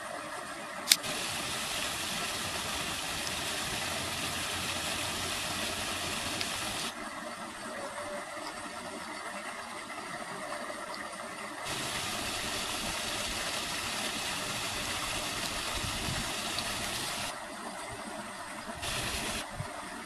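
Steady rushing splash of a small waterfall spilling over rock into a pool. Its hissing upper part cuts in and out abruptly a few times, and there is one sharp click about a second in.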